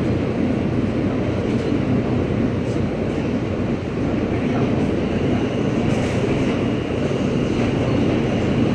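R160A subway car running between stations, heard from inside: a steady rumble of wheels on rail with a few faint clicks.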